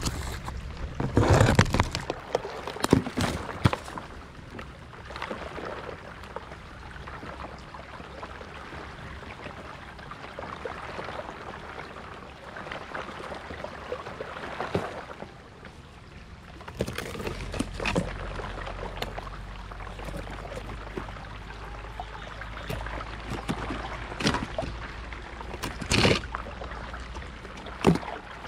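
Fast-flowing canal water rushing and sloshing around a small floating boat. There are several sharp splashing hits in the first few seconds and two more near the end.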